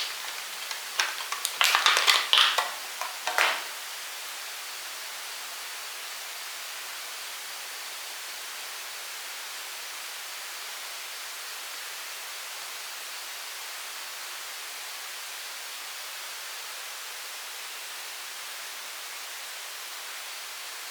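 Clicks and rustling of hands handling the earphones' packaging during the first few seconds, then only a steady hiss.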